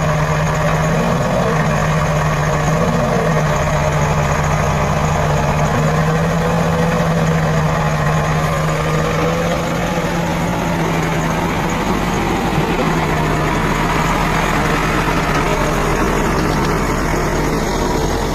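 Backhoe loader's diesel engine running steadily at an even speed.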